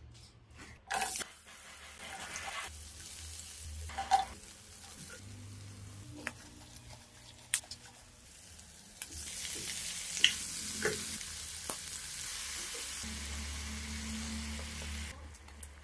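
Onions, garlic and octopus pieces sizzling in oil in a nonstick frying pan, with a utensil clicking and scraping against the pan several times. Near the end coconut milk is poured in, and the sizzling stops suddenly.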